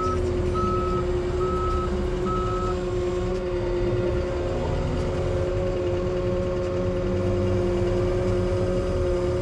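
A skid steer's engine running steadily under load with a droning whine, its reversing alarm beeping about twice a second for the first few seconds and then stopping.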